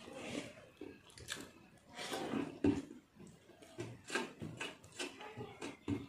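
Fingers mixing and scooping rice on a brass plate: irregular light scrapes and taps of fingertips against the metal, with some chewing.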